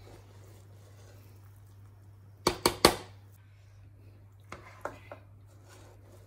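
Metal serving spoon knocking against the pan and plate while serving cooked biryani: three sharp knocks in quick succession about two and a half seconds in, then a few lighter taps a couple of seconds later, over a low steady hum.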